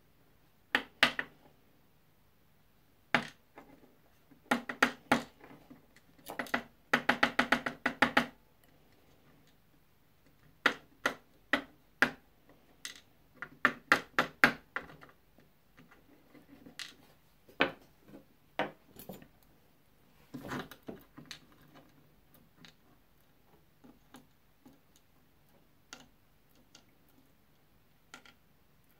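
Sharp metallic clicks and taps of small lock parts being handled: the brass pins and plug of a Mul-T-Lock Junior cylinder and a pair of tweezers over a wooden pin tray during repinning. The clicks come in scattered clusters, with a quick rattling run about seven seconds in.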